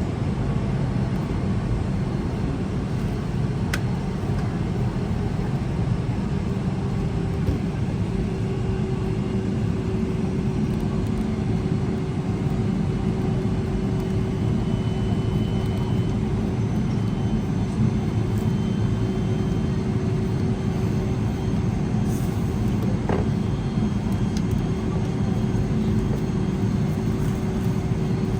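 Steady low rumble inside the cabin of a Boeing 777-300ER, with a faint steady hum joining about eight seconds in and a couple of faint clicks.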